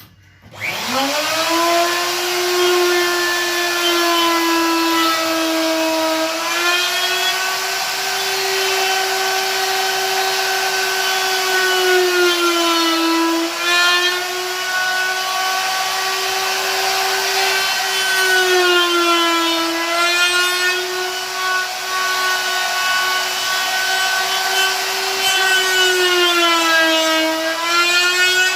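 Electric wood router switched on, spinning up to a steady high whine. Its pitch sags and recovers about four times as the bit bites into the wood under load.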